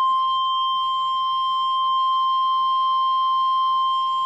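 NOAA Weather Radio's 1050 Hz Warning Alarm Tone: one loud, steady, unbroken beep at a single pitch. It signals that a warning broadcast, here a tornado warning, is about to follow.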